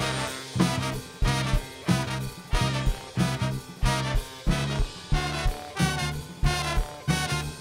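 A horn band plays live: baritone sax, alto sax, trombone and trumpets come in together over the drum kit right at the start, playing a heavy riff. The low line hits on a steady beat about every two-thirds of a second.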